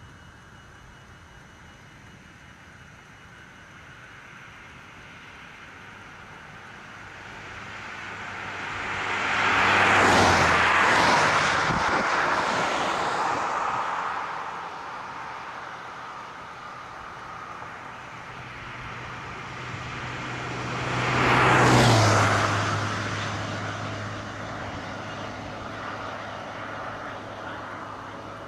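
Two vehicles passing at highway speed, one about ten seconds in and another about twenty-two seconds in. Each swells and fades with a rush of tyre and engine noise, its low engine hum dropping in pitch as it goes by.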